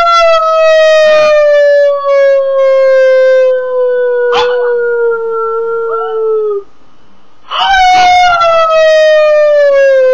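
A person and a pug howling together in two long, slowly falling howls, the first held until about six and a half seconds in and the second starting about a second later. A sharp click about halfway through the first howl.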